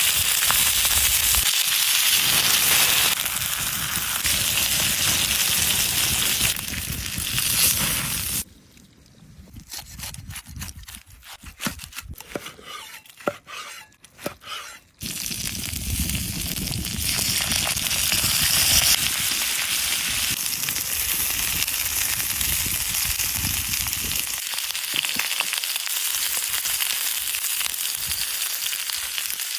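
Food frying in a pan with a steady sizzle. For several seconds midway it drops to scattered pops and crackles, then the sizzle returns.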